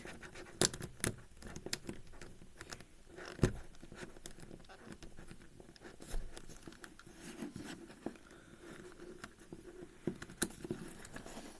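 Plastic 5x5 speedcube pieces clicking and tapping as they are handled and worked into place, in irregular small clicks with a sharp one at the very start and another about three and a half seconds in.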